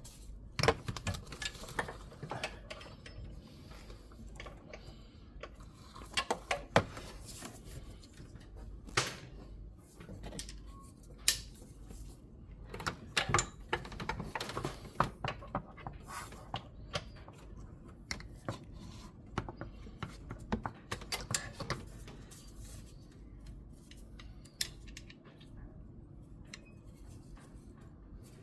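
Sporadic metallic clicks, clinks and knocks of hand tools, a socket and breaker bar, working on a bolt in a car's engine bay, with a faint steady low hum underneath.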